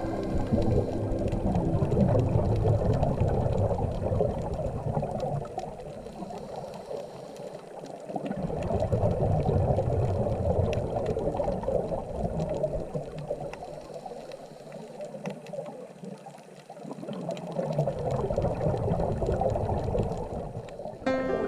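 Underwater sound from a scuba dive: bubbles rumbling and gurgling in three long surges several seconds apart, typical of a diver's exhaled air leaving the regulator.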